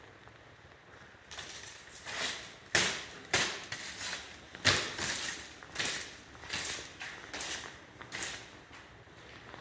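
A hiker's footsteps on the forest floor, about ten steady walking steps at an even pace, starting a little after a second in and stopping near the end.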